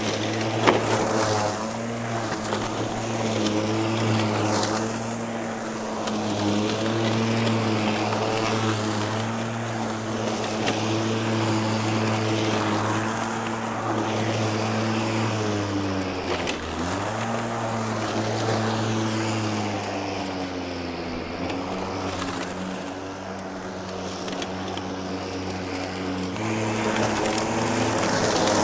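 Milwaukee M18 FUEL 21-inch battery-powered mower's motor running under cutting load. Its pitch dips sharply and recovers about sixteen seconds in, then sags for several seconds and comes back up near the end as the heavy grass bogs it down.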